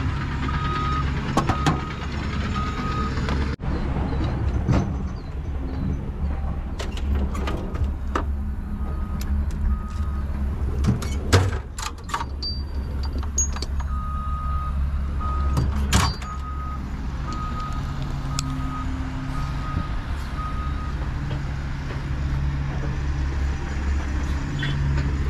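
Atlas Copco PowerRoc T45 drill rig's diesel engine running steadily. An alarm beeps about twice a second, first near the start and again for several seconds past the middle. A few sharp metal clanks come through, the loudest two about halfway through.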